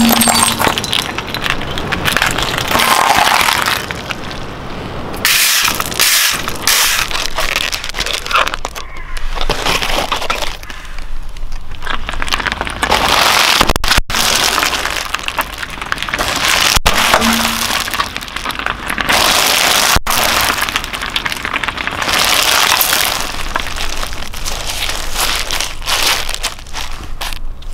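A series of objects crushed under a slowly rolling car tyre, one after another, giving cracks, crunches and pops. Among them are inflated plastic air-cushion packing pillows bursting under the tyre.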